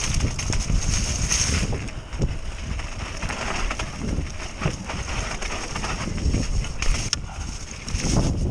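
Mountain bike descending a dirt trail at speed: tyres rolling over the rough ground and the bike knocking and rattling over bumps, with wind buffeting the microphone.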